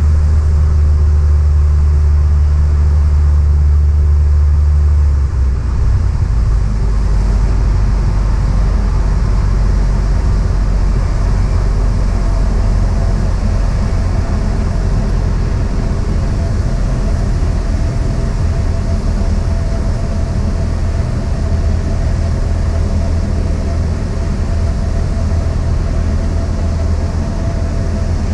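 Cessna 172's piston engine and propeller droning steadily and loudly. About five seconds in, the even low hum changes to a rougher, noisier drone.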